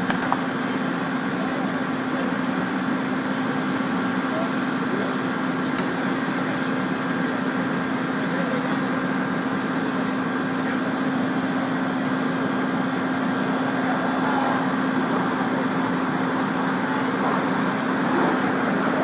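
Engine-driven hydraulic power unit for rescue tools running steadily, a constant hum with no change in speed.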